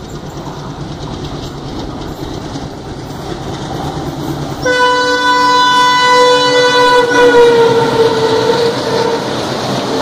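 WDM3D diesel locomotive approaching at speed, its rumble growing louder, then sounding its horn suddenly about halfway through; the horn is the loudest sound and drops in pitch as the locomotive passes, and the coaches follow with wheels clacking over the rail joints.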